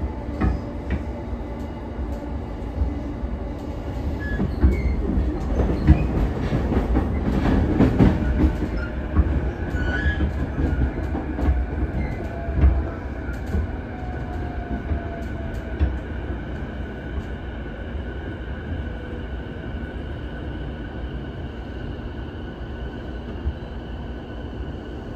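Interior of a JR E233-series electric commuter train running and slowing into a station: steady wheel rumble with clicks over the rail joints, loudest in the first half, then easing off as a faint whine falls in pitch.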